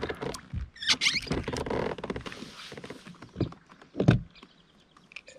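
Knocks, scrapes and rustling of a landing net and gear being handled against a fishing kayak's hull, with a couple of heavier thumps, about one second and about four seconds in.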